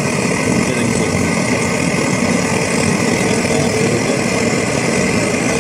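Pressurised liquid-fuel camping stove burning at full output after priming, a loud, steady rushing noise from the burner.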